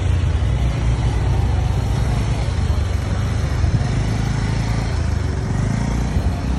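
Street traffic: vehicle engines running and passing close by, with a steady low rumble.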